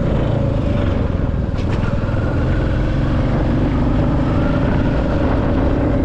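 Royal Enfield Classic 350's single-cylinder engine running under way on the road, heard from the handlebars with a steady rush of wind noise. Its note lifts slightly in the second half.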